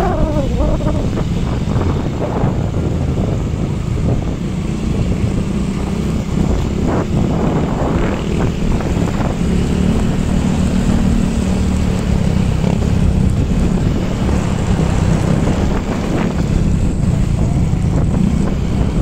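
Wind buffeting the microphone of a moving motorcycle, over the motorcycle's engine running steadily.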